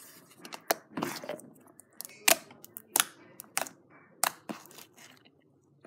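Thick white slime squeezed and poked by hand, giving irregular sharp clicks and pops, a few every second.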